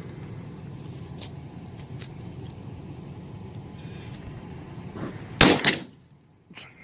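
A .44 Magnum handgun and a .40 caliber pistol fired at the same time, about five seconds in. The result is two loud shots a fraction of a second apart, over a steady low background rumble.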